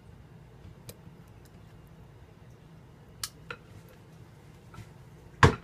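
Kitchen handling sounds over a low steady hum: a few light clicks, then one sharp knock about five seconds in, as utensils or containers are set down at the counter.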